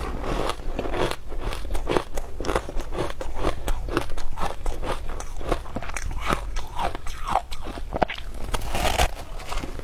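A person biting and chewing frozen matcha ice: a quick, irregular run of sharp crunches as the ice cracks between the teeth.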